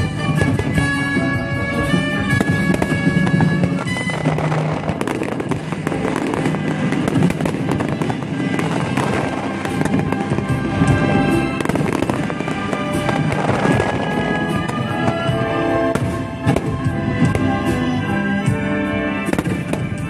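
Aerial firework shells bursting one after another with crackling, over music with held notes.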